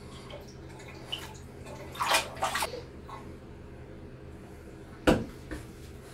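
Bathwater splashing as a puppy is held and moved in a full bathtub: a few quick splashes about two seconds in and a sharper, louder thump about five seconds in, over a steady low hum.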